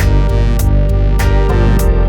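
Background music: an electronic track with synthesizer and guitar over a steady beat.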